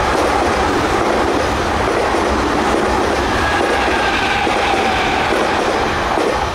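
Tokyu 3000 series electric commuter train passing close by, its wheels rumbling and clattering along the rails with a faint steady whine underneath.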